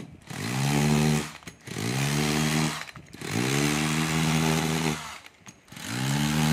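Makita three-function cordless hammer drill-driver, set to its hammer setting, run with no load in four trigger pulls. Each time the motor spins up to a steady whine, then stops. The last run continues past the end.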